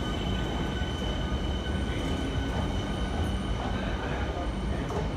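Siemens Nexas electric suburban train pulling out of the platform: a steady low rumble with a constant high-pitched whine over it.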